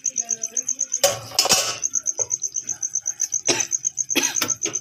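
An insect chirping in a steady, rapid high-pitched pulse. A few brief noisy rustles break in about a second in and again near the end.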